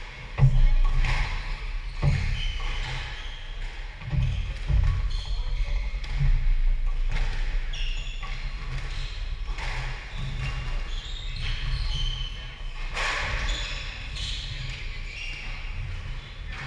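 A squash rally: the ball hits the racket strings and the court walls with a sharp smack every second or two. Between the hits, shoes squeak briefly on the wooden court floor.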